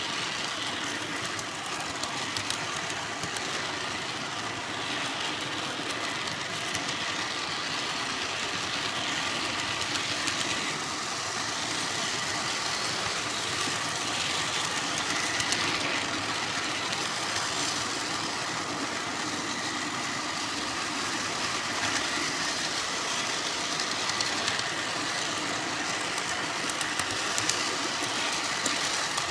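G-scale model train rolling along garden track, heard from on board the caboose: a steady rattle of wheels on rail with frequent small clicks and a faint steady whine.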